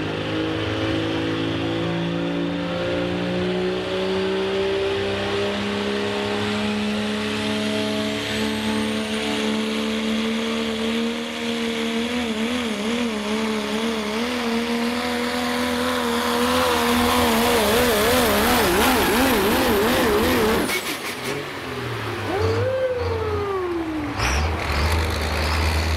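Pro Stock diesel 4x4 pulling pickup at full throttle, hauling a weight-transfer pulling sled. The engine pitch climbs steadily, then wavers up and down under the load, and the engine note cuts off suddenly about twenty seconds in as the pull ends. A brief whine that rises and then falls follows.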